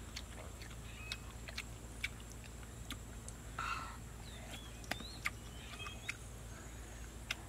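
Quiet eating sounds: scattered small clicks and crunches as pieces of cooked snake are torn and bitten, with a short rustling burst a little past halfway. A steady high insect whine and a few faint bird chirps sit behind.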